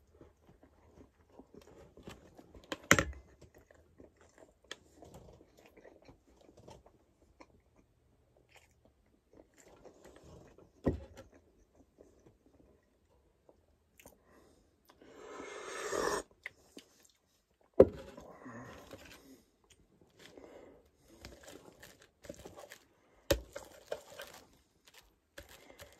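A person chewing bread and breakfast food close to the microphone, with a few sharp clicks and knocks of utensils and dishes, and a louder rushing noise of about a second a little past halfway.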